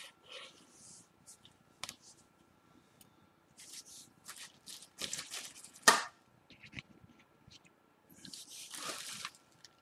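Hands handling small phone parts and their packaging: intermittent rustling and crinkling with light clicks, and one sharper click about six seconds in.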